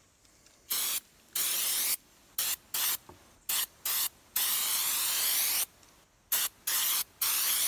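Aerosol can of contact cleaner spraying in about ten short bursts, with one longer spray of about a second in the middle, degreasing a steel rifle barrel.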